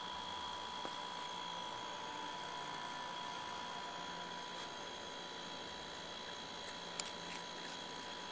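Steady electrical hum and hiss with two thin, steady high tones, and a single sharp click about seven seconds in.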